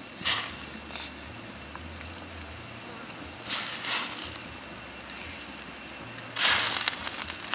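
Chicken and giblets dropped and pressed into a wok of hot broth: three short splashes, the loudest near the end.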